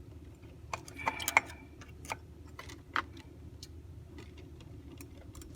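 Small metallic clicks and scrapes of a tool working at the retaining clip on the steel centre shaft of a Wurlitzer jukebox's record carousel, a quick cluster about a second in and a single sharper tick near three seconds, over a steady low hum.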